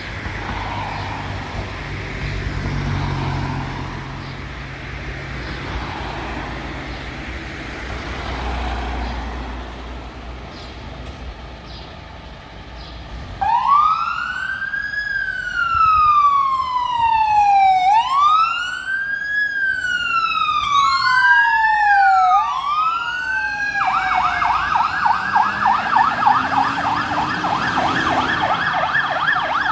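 Fire engine sirens start up about halfway through as the trucks pull out: a slow wail rising and falling every few seconds, a second siren joining out of step, then a rapid yelp near the end. Before the sirens there is only a steady low rumble.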